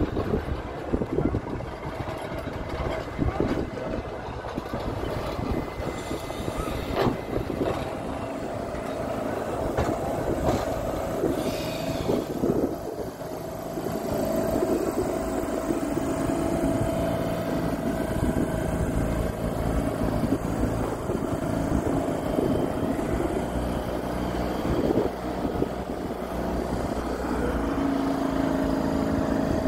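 Blackpool Balloon double-deck electric tram running slowly past at close range. Its wheels knock and click over the pointwork and rail joints during the first half, and a steady whine comes in as it goes by.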